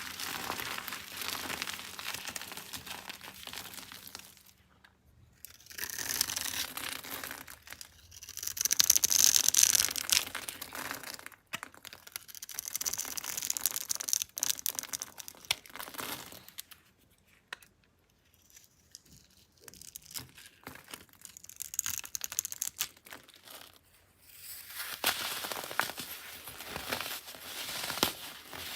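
Soap being crushed and crumbled: crackling, crumbling noise in several bursts, with short pauses between them.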